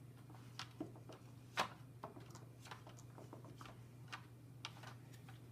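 Scattered light clicks and taps of plastic Play-Doh toy pieces being handled, the sharpest about a second and a half in, over a steady low hum.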